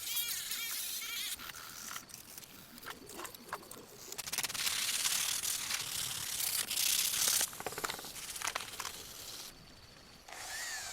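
Hand restoration work on a miniature die-cast car: rubbing and scraping with a few sharp clicks, and a louder steady hiss lasting about three seconds in the middle.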